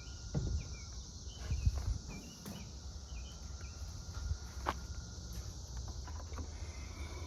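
Footsteps walking over ground, with a few scattered knocks and clicks, over a steady high insect chorus.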